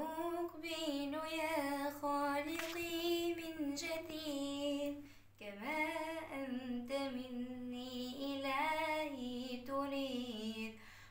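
A girl singing an Islamic nasheed unaccompanied, holding long notes that step up and down, with a short breath about five seconds in.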